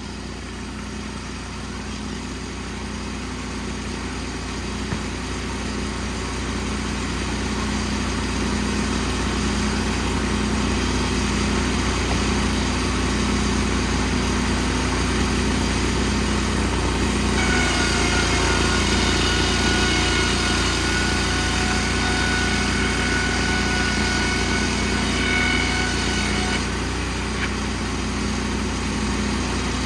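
Portable Wood-Mizer band sawmill's engine running steadily, growing louder over the first several seconds. A high steady whine joins it a little past halfway and stops about nine seconds later.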